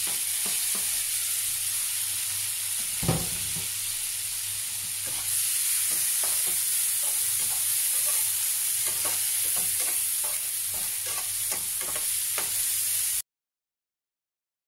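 Chopped tomatoes and onions sizzling in hot oil in a nonstick frying pan, with a spatula stirring and scraping them in quick strokes and one louder knock about three seconds in. The sizzle grows louder partway through, and the sound cuts off suddenly just before the end.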